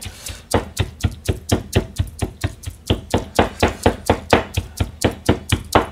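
Chinese cleaver mincing sardine and green onion on a cutting board: a fast, steady run of knocks, about five a second, as the fish is chopped fine for tsumire.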